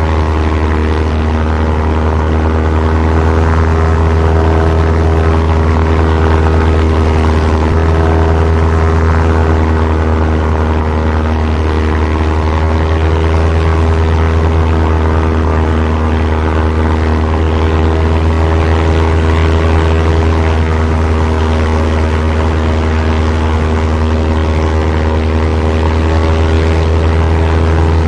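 WWII-era propeller airplane's piston engines running steadily in flight: an even, unchanging drone with a deep hum and several steady tones above it.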